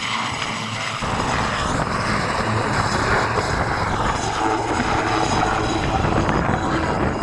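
Westland Sea Lynx naval helicopter in flight: the rapid beating of its main rotor over the running of its twin turboshaft engines, growing louder in the low end about a second in.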